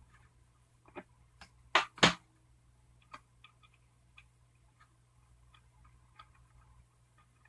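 Scattered small clicks and taps of a metal nut and fingers against a ukulele's body while the nut is being threaded onto the output jack, with two louder knocks in quick succession about two seconds in.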